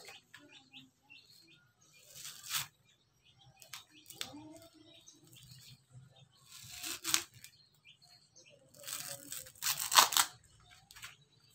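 Coconut husk fibre being torn and pulled off a sprouting coconut by hand, in a few short tearing bursts, the longest and loudest near the end.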